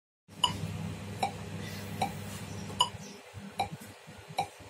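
Steady ticking: a sharp click about every 0.8 seconds, six in all, over a low hum that drops away about three seconds in.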